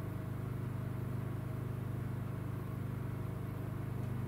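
Steady low mechanical hum of a running motor, even and unchanging.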